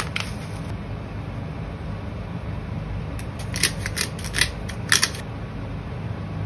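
Handheld pepper mill grinding over a frying pan: a run of sharp crunching clicks from about three to five seconds in, over a steady low hum. A couple of brief clicks at the very start as granules are shaken from a bag.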